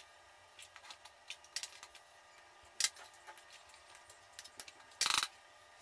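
Faint clicks and light scrapes of a wire-mesh skimmer against a metal cooking pot as cooked rice is lifted out, with one louder short scrape about five seconds in.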